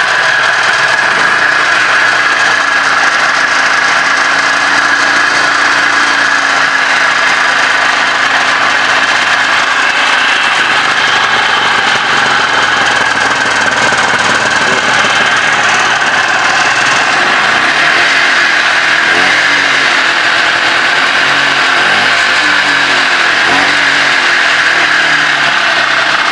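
1973 Scorpion Stinger snowmobile's two-stroke engine running steadily just after a pull-start, its note wavering somewhat in the second half.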